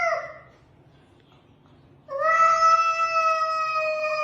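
A cat meowing: the end of one drawn-out meow, then after a short pause a second long, steady meow held for over two seconds.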